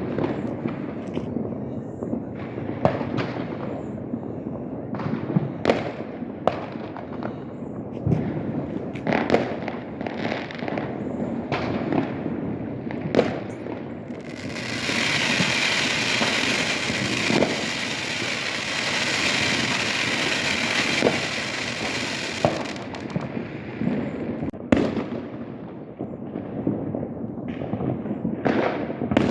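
New Year's fireworks going off all around: scattered sharp bangs over a steady low rumble. A dense, steady hiss sets in about halfway through and runs for about eight seconds.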